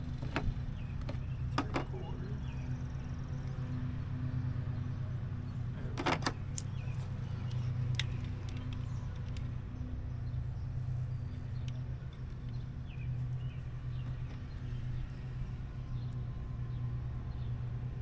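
A few sharp metal clicks and clinks, loudest about two and six seconds in, as the jaws are changed on a PEX crimping tool. A steady low hum runs underneath.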